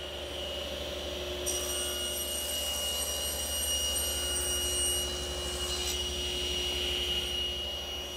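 Table saw running with a steady whine, cross-cutting a painted beadboard panel on a crosscut sled: the blade is in the cut from about a second and a half in until near six seconds, then spins freely again.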